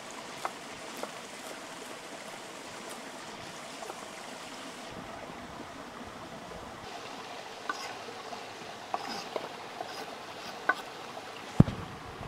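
Steady rush of a shallow stream, with occasional sharp knocks of a kitchen knife on a wooden cutting board as onion is cut. A louder thump near the end.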